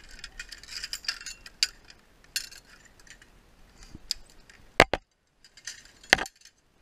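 Metal carabiners and zipline trolley hardware clinking and clacking as they are handled and clipped onto the steel cable, with two sharper, louder metal clacks in the later part.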